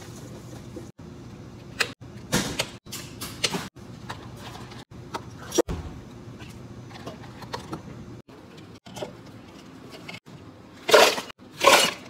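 Drink-making handling sounds: plastic cups, dome lids and sleeves handled on a counter in short clicks and rustles, cut together in quick edits. Near the end ice is scooped into plastic cups twice, the loudest sounds.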